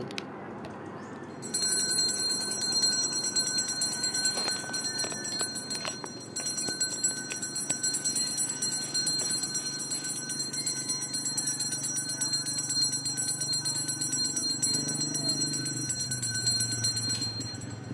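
A street ice-cream vendor's handbell ringing rapidly and without letup: a bright, steady ring with a fast shake to it. It starts about a second and a half in, dips briefly around six seconds, and stops just before the end.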